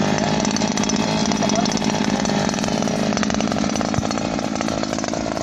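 Gladiador PRO two-stroke brush cutter engine running steadily at part throttle, its line head spinning, with a light knock about four seconds in.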